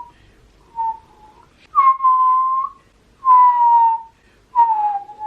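Whistling: a series of long, clear whistled notes around one pitch, each lasting about a second, most gliding slightly downward.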